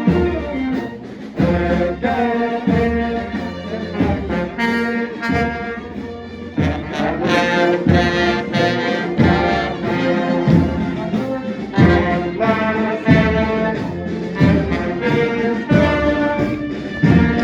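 A marching band's brass section, trumpets and trombones, playing a tune over a steady drum beat.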